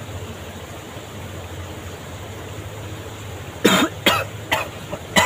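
A man coughing on cigarette smoke: four quick coughs in a row starting about three and a half seconds in, after a stretch of steady background noise.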